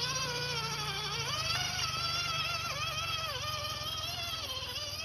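Electric drive motor and gearbox of an MN99S 1/12-scale RC Land Rover Defender whining as it drives, the pitch rising and falling with throttle and load; the pitch steps up about a second in.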